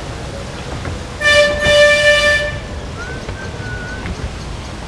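A horn sounding twice: a short toot and then a longer blast of about a second, over a steady background rush of wind.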